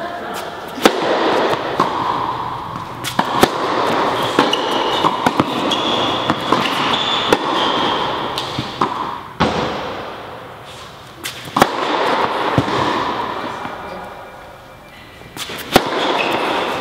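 Tennis ball struck by rackets, sharp cracks ringing in an indoor tennis hall: a serve about a second in, then a rally with shots every second or so, over a background noise that swells and fades.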